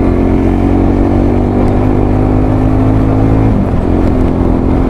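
Motorcycle engine running steadily under the rider at low road speed. Its pitch drops briefly about three and a half seconds in, then holds steady again.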